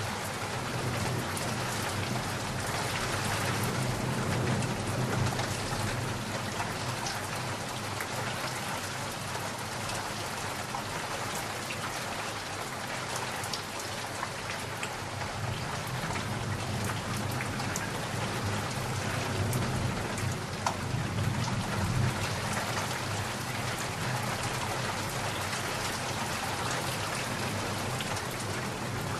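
Steady rain falling, with low rumbles of thunder swelling up twice, a few seconds in and again about two-thirds of the way through.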